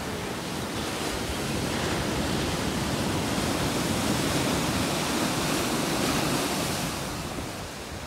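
Sea surf breaking and washing up a sandy beach, with wind on the microphone. The wash swells through the middle and eases near the end.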